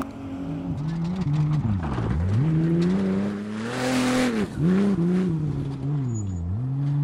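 Off-road race buggy engines revving hard, their pitch climbing and then dropping sharply several times as they shift through the gears under acceleration. About four seconds in, a buggy passes close by with a loud rush of tyre and dirt noise.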